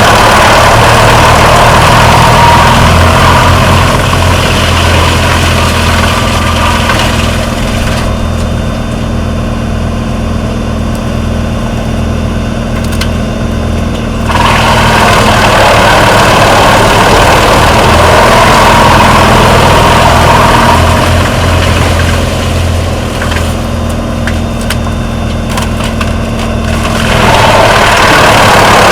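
Wood chipper running: a steady engine drone under loud grinding and shredding of wood being fed through. The grinding falls away twice for several seconds, leaving the engine alone, then cuts back in abruptly.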